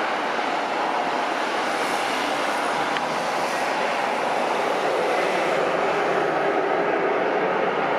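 Steady jet noise from the landing Embraer E-195's turbofan engines, an even rushing sound with no clear tone.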